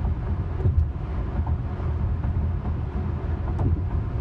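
Steady low road and tyre rumble inside a Tesla's cabin at highway speed on patchy construction-zone pavement, with a couple of faint clicks.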